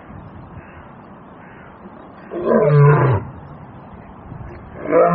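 Lion roaring twice, each call about a second long and falling in pitch; the second starts near the end.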